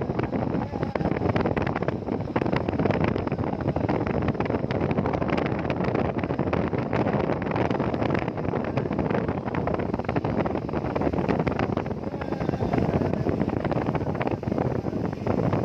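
Heavy rain falling steadily: a dense, even hiss full of small drop hits, with wind buffeting the microphone.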